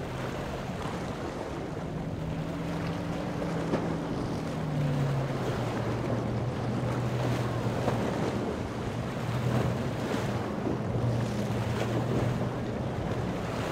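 Boat engine running with a steady drone that drops in pitch about five seconds in, over the rush of waves and wind buffeting the microphone.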